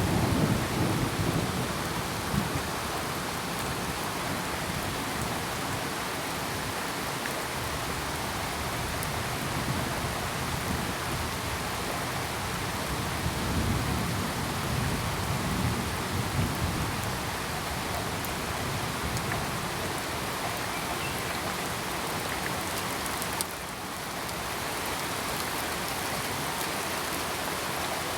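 Steady rain falling, an even dense hiss, with low rolling rumbles of thunder at the start and again around the middle.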